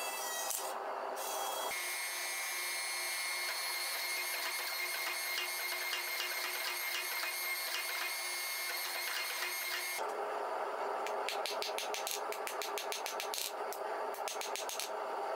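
A few hammer blows on red-hot steel on the anvil, then a hydraulic forging press running with a steady hum and whine for several seconds, then a quick run of hammer strikes on the hot blade.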